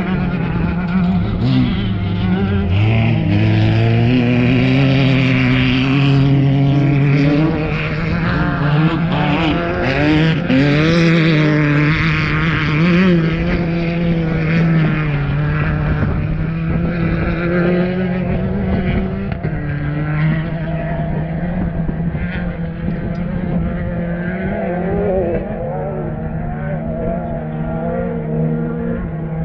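Off-road race vehicle engines running, several at once: a steady low engine drone throughout, with other engines rising and falling in pitch as they rev and pass.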